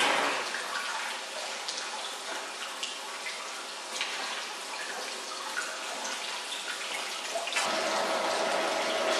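Liquid churning and splashing in a potato-processing tank, a steady watery hiss with small splashes and clicks. About three-quarters of the way through it gives way to an electric potato-slicing machine running with a steady hum.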